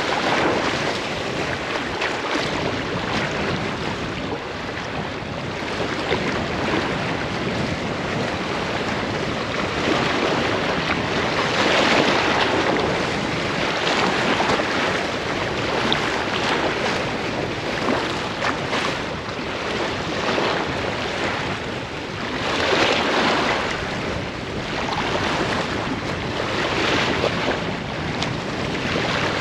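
Waves breaking and washing against a seawall, swelling in louder surges a few times, with wind buffeting the microphone.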